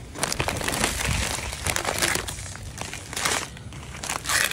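Clear plastic bag and wrapping crinkling and rustling continuously as hands rummage through packaged items, with many sharp crackles.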